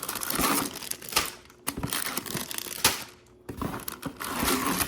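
Sealed plastic bags of LEGO pieces crinkling and rustling as they are handled, with irregular sharp clicks and a short quiet pause about three seconds in.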